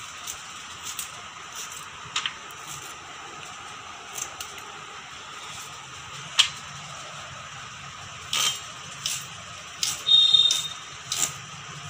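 A carrot being cut into sticks with a small knife held in the hand: scattered, irregular small clicks and snaps, with a few louder ones in the second half. There is a brief high tone about ten seconds in.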